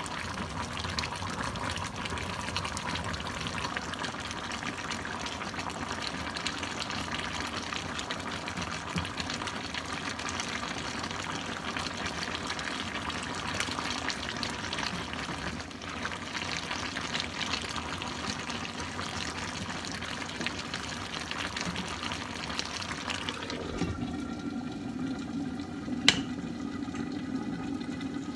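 Coconut-milk broth with crab, squash and green beans simmering in a wok, a steady bubbling sizzle as the broth is boiled down to thicken, with a wooden spatula stirring through it. About 23 seconds in a glass lid goes on and the bubbling turns muffled, with one sharp clink a few seconds later.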